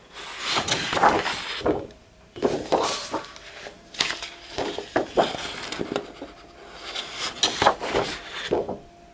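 Sheets of scrapbook paper being leafed through and shuffled by hand: a string of irregular rustles and light slaps of paper against paper.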